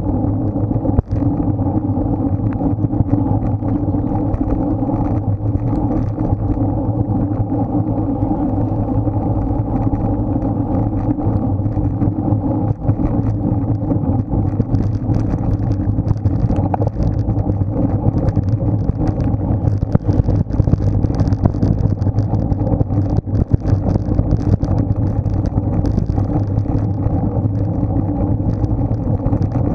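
Steady rush of wind on an action camera's microphone, with road and tyre noise from a road bicycle being ridden at speed.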